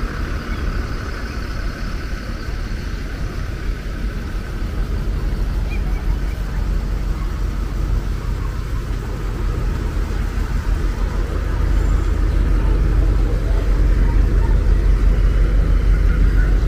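Parade cars passing slowly, a steady low engine rumble that grows louder in the last few seconds as a Ford Mustang convertible draws alongside.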